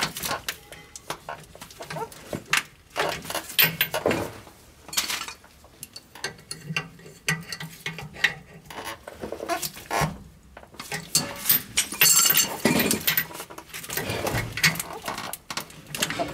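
Irregular metallic clicks and clinks as air-brake hose fittings are handled and threaded onto a new brake chamber's ports.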